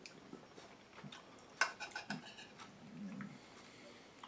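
A few light clinks and scrapes of a metal utensil against a ceramic bowl as salad is scooped, the sharpest clink about one and a half seconds in.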